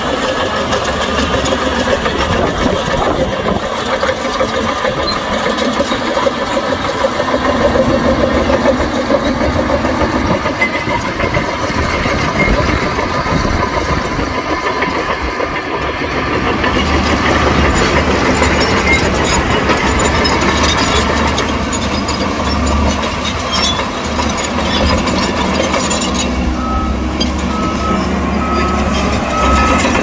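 Heavy diesel earthmoving machinery running steadily under load, with the low rumble of big engines throughout. Near the end a backup alarm beeps in a steady series of short high tones.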